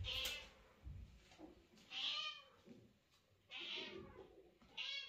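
Mother cat meowing: four short meows, each rising and falling in pitch, about a second and a half apart.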